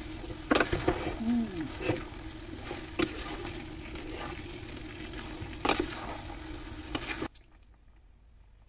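Stir-fried noodles sizzling in a hot pan while a wooden spatula tosses them, with a few sharp knocks of the spatula against the pan. The sizzling cuts off suddenly near the end.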